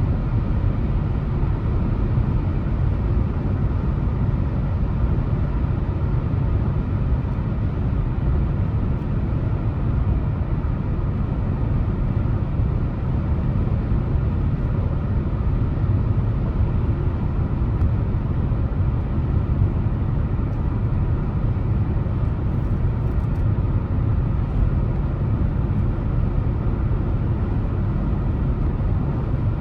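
Moving car's steady road noise: a low hum of tyres and engine that stays level throughout.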